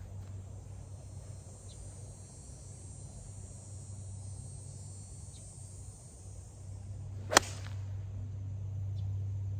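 A 7-iron strikes a golf ball off the tee: one sharp click about seven seconds in, the loudest sound, over a steady low hum and a faint high hiss.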